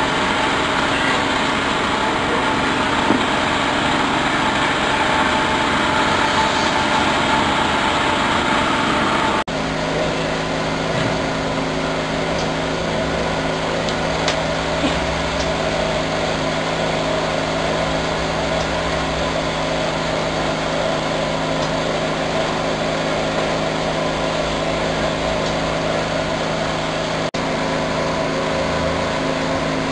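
A small motor-driven liquid filling machine running steadily with a constant mechanical hum; the tone of the hum changes abruptly about ten seconds in.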